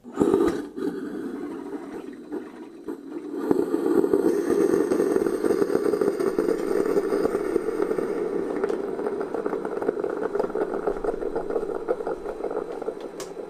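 Ninja CP307 Hot and Cold Brewed System coffee maker starting its brew cycle, running very loud with a rapid buzzing rattle. It kicks in suddenly and grows louder about three and a half seconds in, then stays steady.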